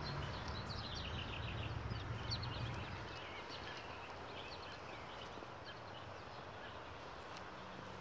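Small songbirds chirping in many short, quick notes, over a low rumble that fades out about three seconds in.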